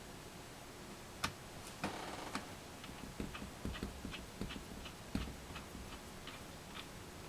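A string of irregular small, sharp clicks and taps as laptop parts are handled and fitted back together, starting about a second in.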